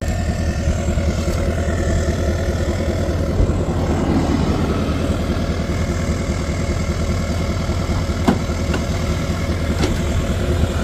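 Chevrolet Silverado pickup's engine idling steadily with an even low rumble. A single sharp click comes about eight seconds in.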